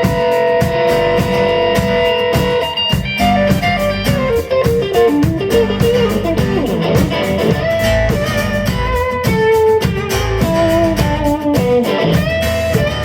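Live band playing an instrumental break of a blues-tinged rock song: a lead electric guitar plays a melodic solo over bass and drums.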